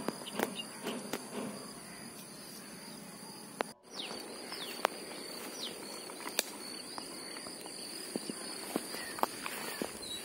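Insects trilling steadily at a high pitch, with scattered light clicks and rustles of hands handling a plastic bag and bait, and a few short falling chirps about four to five seconds in.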